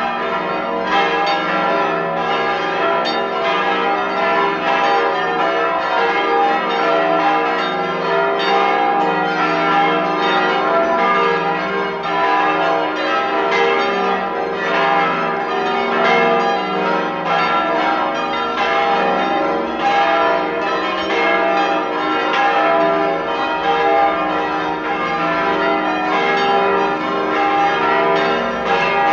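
Full peal of a basilica's church bells, all bells ringing together in a dense, continuous stream of overlapping strikes. It is the call to an evening rosary service.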